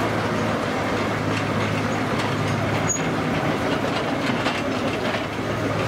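Steam-driven sawmill machinery running steadily, with a constant low hum and a light, rhythmic clatter.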